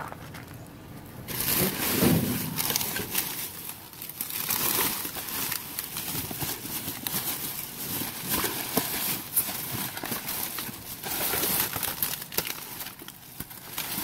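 Plastic trash bags and plastic sheeting rustling and crinkling as they are pushed aside by hand in a dumpster, with many irregular crackles, loudest about two seconds in.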